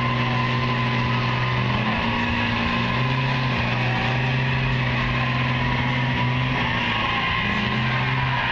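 Two diesel pickup trucks, a Dodge Ram with a Cummins inline-six turbo diesel and a Ford Powerstroke turbo diesel, running at high revs under full load as they pull against each other in a tug-of-war, with tires spinning on wet ground. The engine note holds steady, with small shifts in pitch.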